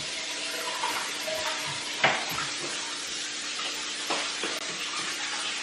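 A steady hiss like running water, with a couple of light knocks about two and four seconds in.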